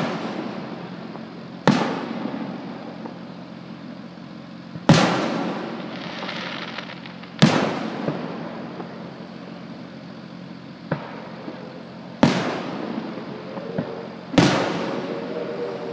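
Aerial firework shells bursting overhead: five loud booms a few seconds apart, each trailing off in an echoing rumble, with a couple of smaller pops between them.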